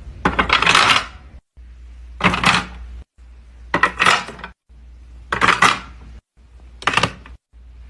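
Small hard objects clattering and clinking in five short bursts about a second and a half apart, each one cut off abruptly.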